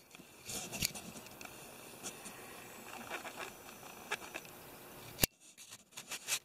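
Faint handling noises: scattered light clicks and rustles over a low room hiss, then one sharp click a little after five seconds, after which it goes nearly silent.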